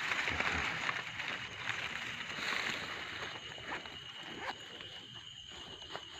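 Rustling and handling noise of hands working among leaves and a bag, loudest in the first half, with a few light clicks later. Under it runs a steady high-pitched drone of night insects.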